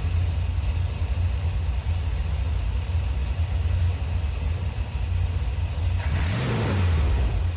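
A 1981 Corvette's 350 V8 idling steadily at about 850 rpm on a freshly adjusted carburetor. About six seconds in, a louder rush of noise comes in for a second and a half.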